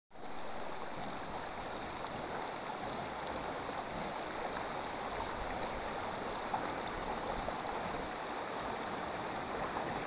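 Tall waterfall, about 100 m high, plunging into a rocky pool, with the shallow stream below it running over stones: a steady, hissing rush of falling and flowing water.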